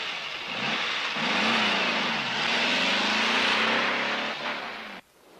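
Dodge Dart's 318 small-block V8 revving hard as the car accelerates away, its pitch rising and falling under a loud high hiss. It cuts off suddenly near the end.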